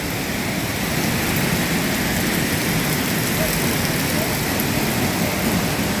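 Steady rush of a large waterfall, a constant even roar of falling water with no breaks.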